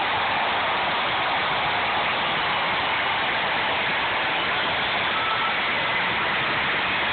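Arena crowd cheering and applauding in one loud, steady roar.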